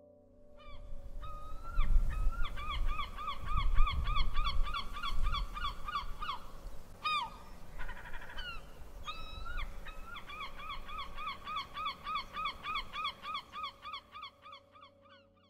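Gulls calling in two long runs of sharp, repeated cries, about three a second, with a short break between them. A low rumble sits underneath during the first half.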